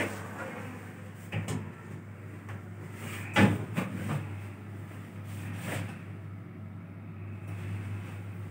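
Hyundai traction elevator doors sliding shut: several light knocks and one loud clunk about three and a half seconds in, over a steady low hum in the car.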